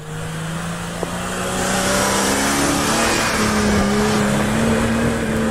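Off-road 4x4's engine revving hard and held at high revs under a steady hiss. Its pitch steps up a little past halfway and then holds.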